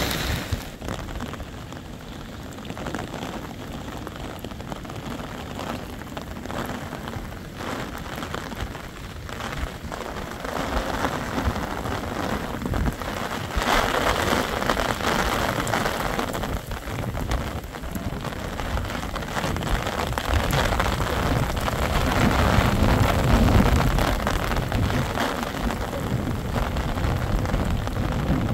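Heavy rain falling steadily, with a dense patter of drops striking a surface. A low rumble swells about two-thirds of the way through, then eases off.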